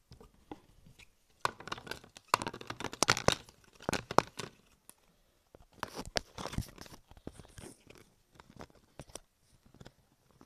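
Close handling noise: hands rubbing and knocking against the camera and crinkling packaging, a run of irregular clicks and rustles that comes in two busy stretches, about one and a half seconds in and again about six seconds in.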